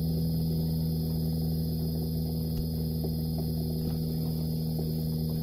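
Steady electric hum of a boat central-heating circulation pump running as it primes the water through an Alde gas boiler. A few faint ticks over the hum.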